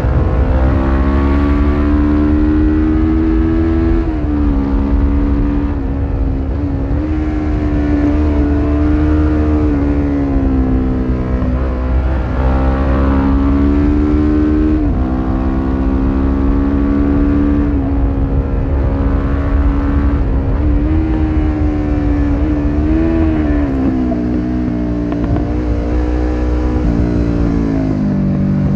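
1993 Suzuki GS500E parallel-twin running through a Takkoni slip-on exhaust with dB-killer, heard from on board while riding. The revs climb and drop again and again as the bike accelerates and eases off through the bends. Heavy wind rumble sits on the microphone underneath.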